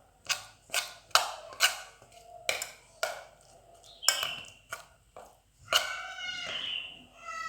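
A stirring utensil clinking sharply against the side of a container, about eight separate knocks at an uneven pace, as a damp rice-bran feed mash is mixed by hand.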